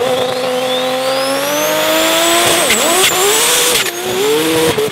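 Big-turbo six-cylinder drag vehicle launching on sand at full throttle. The engine revs climb with a rising high whistle, then dip sharply twice in the second half, with brief sharp bursts of noise at the dips.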